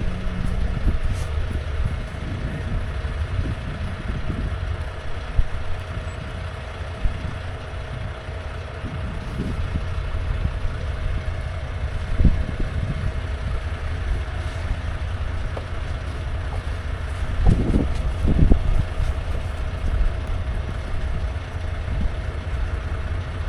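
Snow plow truck's engine running as it works the lot, a steady low drone with a thin constant whine. A few dull low thumps near the end.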